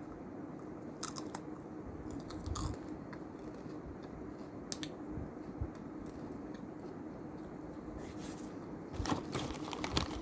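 Close-up chewing and crunching of Mr Twist crisp snack, with sharp crackles at irregular intervals and a denser bout of crunching near the end.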